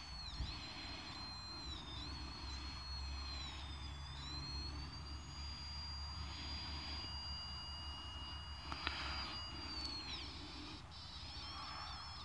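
Satfinder meter squealing with a thin, high tone whose pitch wavers and rises as the satellite dish is turned, then holds steady for several seconds: a strong satellite signal.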